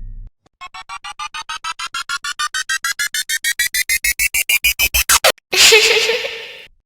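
Synthesized sound effect: a run of short electronic beeps that come ever faster and climb in pitch for about five seconds, then cut off. A loud noisy blast follows and fades over about a second.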